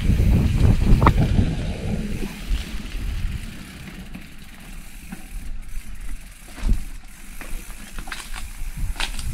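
Off-road motorcycle on a dirt trail: a loud low rumble for about the first two seconds, then quieter running with scattered knocks and rattles.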